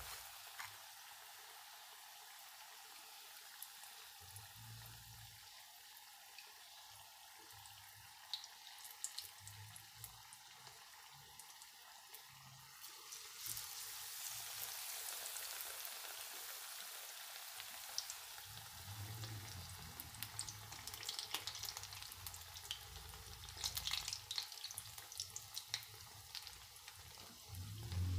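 Besan-battered green chilies deep-frying in hot oil in an iron kadai: a steady sizzle with scattered crackles, louder from about 13 seconds in as another battered chili goes into the oil.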